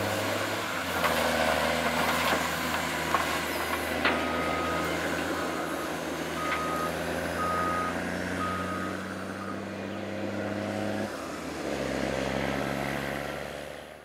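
Heavy diesel engines of a Cat 950K wheel loader and a Cat 730 articulated dump truck running steadily. A backup alarm beeps about once a second from about four seconds in until about ten seconds, and a couple of sharp knocks come early on. The engine note shifts near the end before the sound fades out.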